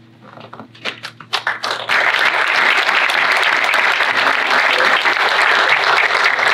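Small audience applauding: a few scattered claps about a second in, building into steady full applause.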